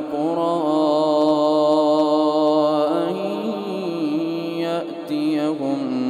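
A man's voice reciting the Quran in the drawn-out, melodic tajweed style, holding long notes with slow ornamented turns in pitch and a brief breath about five seconds in.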